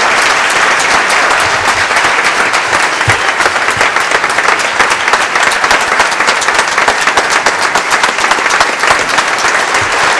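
Audience applauding: many people clapping at once, steady and loud.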